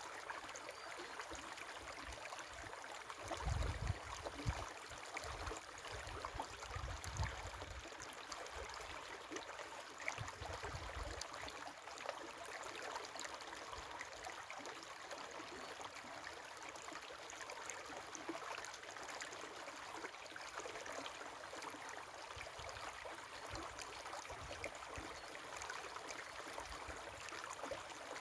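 River water flowing steadily, with a few low rumbles in the first ten seconds or so.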